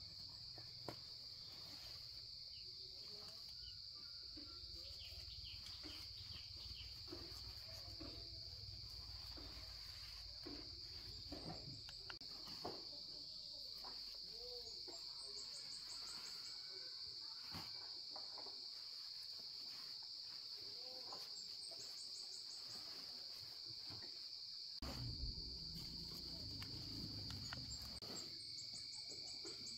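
Steady high-pitched drone of an insect chorus, with scattered clicks and rustles. A low rumble comes in a few seconds before the end.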